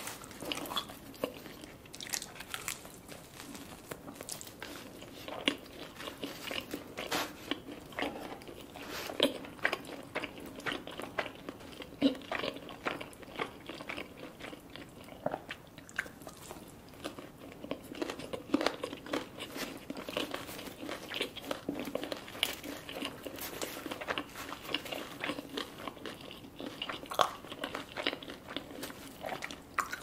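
Close-up eating sounds of a person chewing and biting naan and chicken, with irregular small crunches and mouth clicks, several loud ones scattered through.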